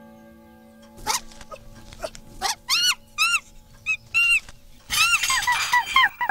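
Monkeys screeching: single rising-and-falling cries about half a second to a second apart, turning into a dense chattering chorus about five seconds in. Under the first part, the ringing of a pendulum clock's chime dies away, with a few sharp clicks.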